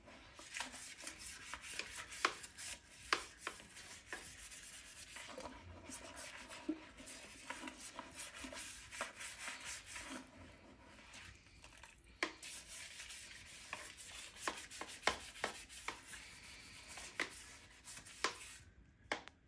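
Toilet brush scrubbing a porcelain toilet bowl: stiff bristles scraping and swishing against the bowl and through the water, with frequent sharp taps of the brush against the porcelain.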